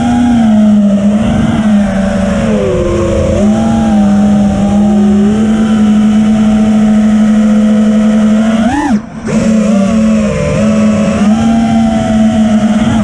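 Brushless motors and propellers of a 5-inch FPV quadcopter (iFlight Xing 2207 1800KV motors), heard loud from the onboard camera, their buzzing pitch sliding up and down with throttle. About nine seconds in the pitch jumps up, then the sound briefly drops away and returns.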